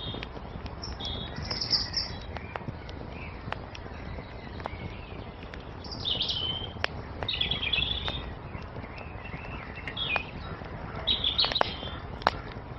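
Wood fire crackling with sharp pops over a low steady rumble, while small songbirds chirp and twitter at intervals, busiest about six to eight seconds in and again near the end.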